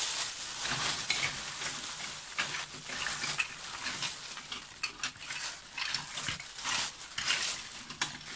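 Rummaging through a bag of small plastic toy accessories and figure parts: a run of irregular rustles and light plastic clicks and taps.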